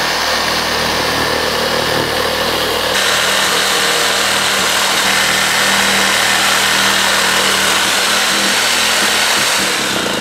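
Reciprocating saw running steadily as its blade cuts through the aluminium core of an old air-to-air intercooler, metal sawing over the motor's hum.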